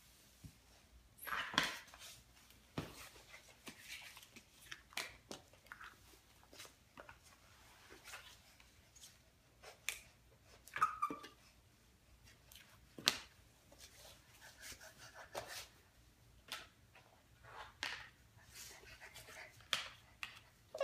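Large cardboard floor-puzzle pieces being picked up, slid and set down on a wooden floor: faint scattered taps and rustles, with a brief small vocal sound about halfway through.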